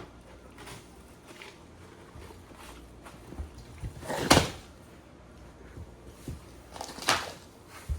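A few sharp knocks, like a kitchen cupboard door being shut. The loudest comes about four seconds in and a second strong one a few seconds later, with a few softer taps between.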